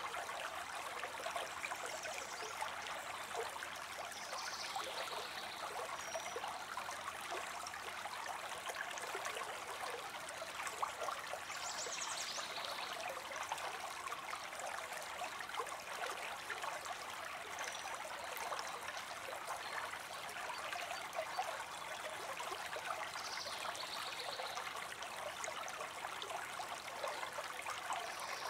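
Steady babbling of running water, like a small stream, with a few short, faint high chirps over it.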